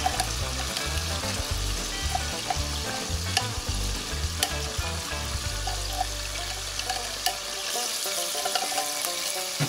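Chopped onions sizzling in hot olive oil in a cast-iron Dutch oven, a steady hiss with scattered pops, as a spatula scrapes and stirs them in.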